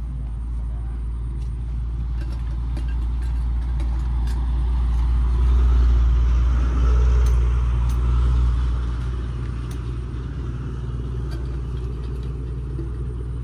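Aircraft passing low overhead: a steady rumble that builds to its loudest about six to eight seconds in, then slowly fades.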